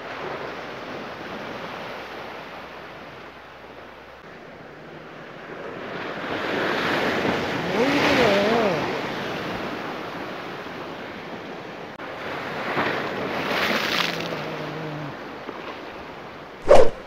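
Ocean surf surging and breaking against a rocky shore, one large wave crashing in spray about eight seconds in and another surge a few seconds later. A single sharp knock near the end.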